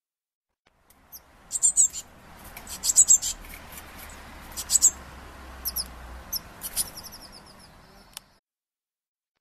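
Eurasian blue tit fledgling's begging calls: bursts of rapid, very high-pitched squeaky chirps, starting about a second in and stopping about a second before the end.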